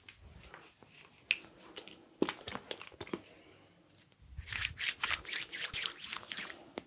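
Hands massaging a person's back: the rubbing and rustling of hands on skin and fabric, with a few short taps in the first half and a denser stretch of rubbing in the second half.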